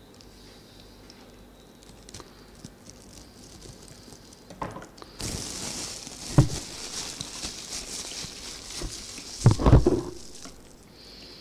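A plastic bag crinkling as it is twisted and squeezed to press carrot extract through a tissue filter. The crinkling starts about five seconds in, with two dull knocks in the middle and near the end.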